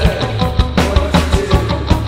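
Loud noise-rock band recording: a dense wash of guitars over sustained bass notes, with drums hitting about two and a half times a second.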